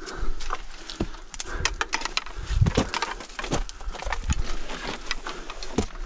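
Footsteps and trekking-pole tips clicking and crunching on loose scree and bare rock while scrambling up a steep slope, an irregular run of sharp knocks. There is a louder low thud about two and a half seconds in.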